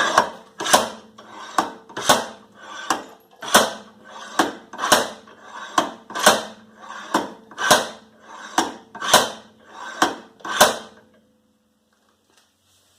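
About sixteen steady hammer blows on the steel rear wheel hub of a 2010 Toyota Prius, roughly one and a half a second, each with a metallic ring that hangs on briefly after the last blow. The blows are trying to knock out a hub stuck hard in its knuckle, which does not budge.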